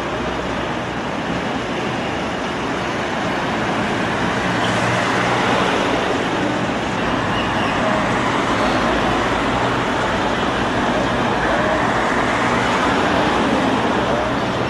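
Busy city street traffic: a steady, dense rumble of passing vehicles that grows a little louder about four seconds in.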